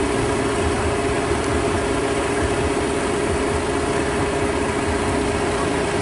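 Small diesel farm tractor engine running steadily as the tractor pulls through paddy mud on steel cage wheels: an even, unchanging drone.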